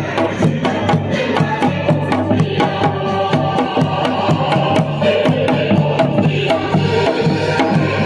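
Dance music playing, with a steady drum beat under a melody, in a Yanbian Korean folk style.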